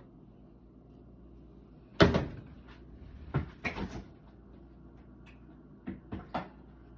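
Refrigerator door and its contents being handled: a loud knock about two seconds in, further clunks just after, and a few lighter clicks near the end.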